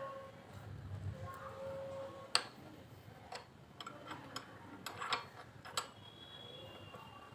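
Scattered sharp metallic clicks and taps, about one a second, from a wrench working loose the bolts of a motorcycle front brake caliper, with a couple of short squeaks in the first two seconds.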